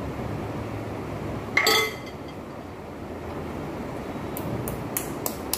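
A metal ladle clinks once against a glass bowl and rings briefly. Near the end come several short crisp cracks as puri shells are broken open by hand, over a steady low background hum.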